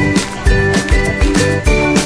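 Background music with a steady beat and sustained melodic notes.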